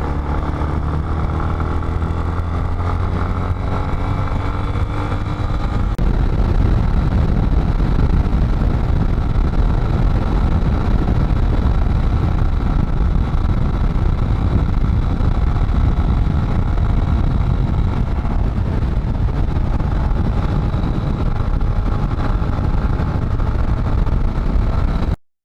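Motorcycle engine heard from the rider's helmet camera, pulling with a slowly rising pitch for the first few seconds. Then the engine runs on at speed under heavy wind rush on the microphone. The sound cuts off abruptly near the end.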